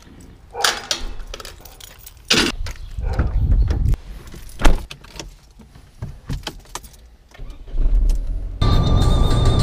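Car keys jangling and sharp knocks and clunks as someone gets into a Peugeot car, the loudest clunk about halfway through. Near the end the key is turned in the ignition and the engine starts with a low rumble, then music comes in over it.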